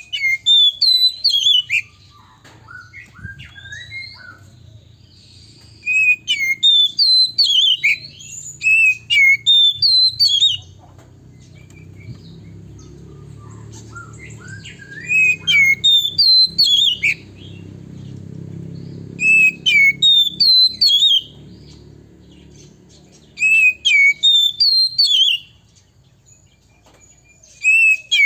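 A male Oriental magpie-robin singing: loud bouts of rapid, repeated whistled notes that swoop up and down, about six bouts of a few seconds each with short pauses between, over a low steady hum.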